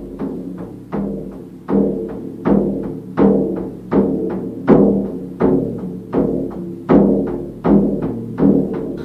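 Hand-held frame drum beaten with a beater in a steady rhythm, a strong stroke about every three-quarters of a second with lighter strokes between. The beats grow louder about two seconds in, and each one leaves a low ringing tone.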